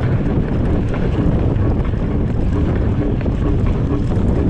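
Heavy wind buffeting the microphone, with a constant low rumble and a rattle of small knocks, as a mountain bike rides fast down a dirt race course.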